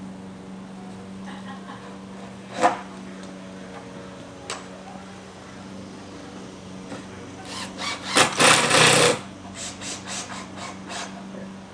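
Hand and power tools working on wooden playset parts: a few sharp knocks, then a longer rasping, scraping stretch about eight seconds in, followed by a quick run of small ticks.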